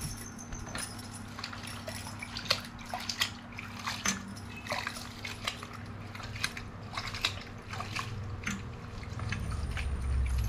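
Chopped cauliflower greens and eggplant being washed by hand in a steel pot of water: irregular splashing and dripping as the hands stir and lift the greens. Near the end a plastic colander is dipped into the pot, with heavier sloshing.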